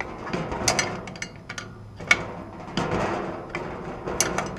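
Socket ratchet clicking in several bursts as it is worked back and forth, turning a case-puller tool's screw to draw a chainsaw crankshaft bearing into its crankcase half, with the bearing about halfway seated.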